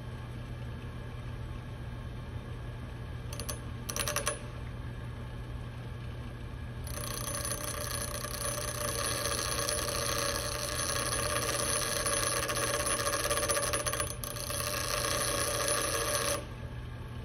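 Bench grinder motor humming steadily while a flathead screwdriver blade is sharpened against the grinding wheel: two brief touches about three to four seconds in, then steady grinding of the steel tip from about seven seconds until near the end, with a short break around fourteen seconds. The grinding has a high ringing tone over its hiss.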